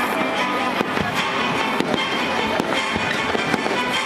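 Fireworks going off in quick succession, many sharp bangs and crackles, over music with sustained tones playing along with the show.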